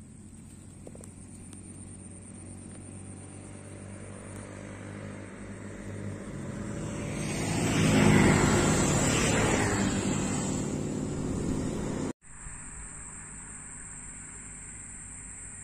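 A motor vehicle passing on the road. Its engine grows louder to a peak about eight seconds in, then fades, and the sound cuts off suddenly a little after twelve seconds.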